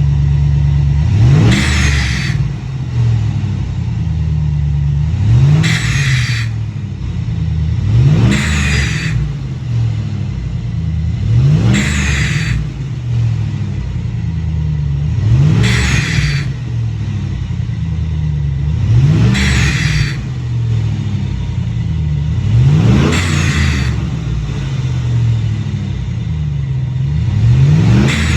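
Pickup truck engine idling, blipped about every four seconds, each rise in revs followed by a short hiss from an add-on turbo-sound simulator wired to the battery.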